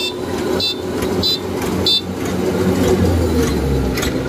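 Kubota DC-93 combine harvester's diesel engine running steadily. A short high electronic beep repeats about every two-thirds of a second during the first two seconds, and a deeper rumble swells near the end.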